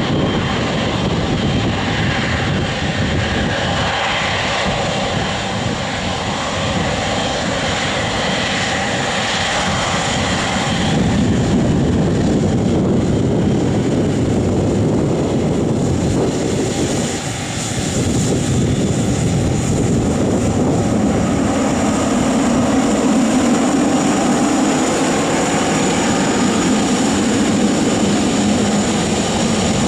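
Airliner engines, loud and continuous: a high whine at first that gives way to a deeper, heavier rumble about a third of the way in, with a brief dip in loudness a little past the middle.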